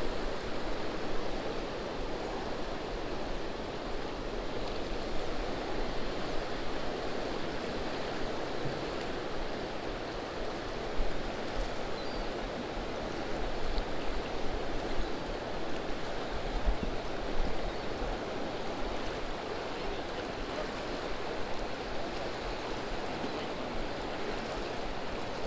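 Steady rain falling on the water, an even hiss with no distinct events.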